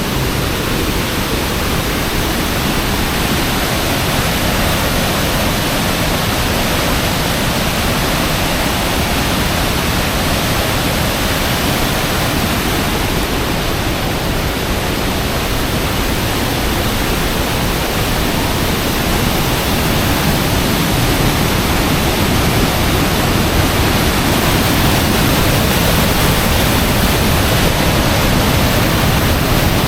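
Waterfall heard from close up: a steady, loud rush of falling water, growing a little louder toward the end.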